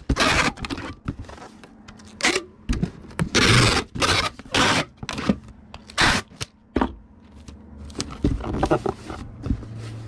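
Packing tape being pulled off a roll and pressed down to seal a shipping box: a string of irregular noisy pulls, some short and some longer, quieter near the end.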